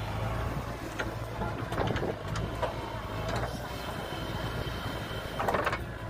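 JCB backhoe loader's diesel engine running steadily while the backhoe arm swings round and lowers, with several metallic clanks and knocks from the arm and bucket, the loudest near the end.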